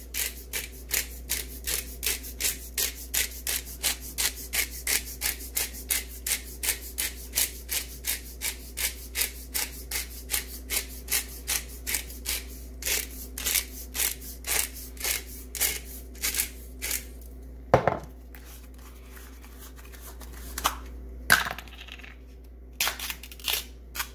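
Black pepper mill being twisted over the chicken, grinding in quick, even rasping strokes about three a second, then stopping with a single knock and a few light clicks.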